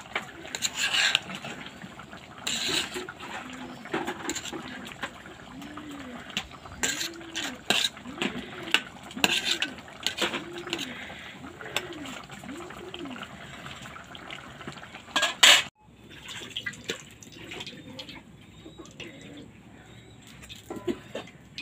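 A spatula scraping and clattering against a cooking pot in irregular strokes as cooked polao rice is stirred and tossed, with a louder scrape about fifteen seconds in.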